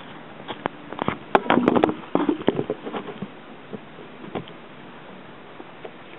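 Handling noise as a camera is moved and set down: a run of knocks, rubs and rustles over the first three seconds, loudest about one and a half to two seconds in. A few faint taps follow, then only a steady outdoor hiss. The motorcycle engine is not running.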